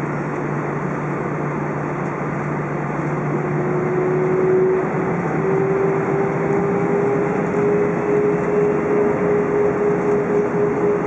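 Airbus A320 engines and cabin noise heard from inside the cabin, a steady rush with an engine whine that appears about three seconds in, rises a little in pitch and then holds steady as the level creeps up.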